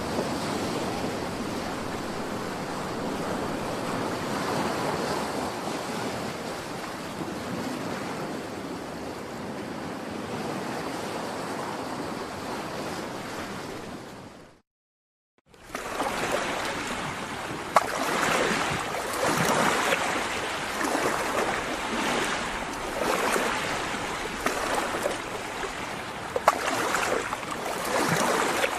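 Ocean surf: an even wash of waves that cuts out for about a second halfway through, then returns with sharper splashes and breaking waves.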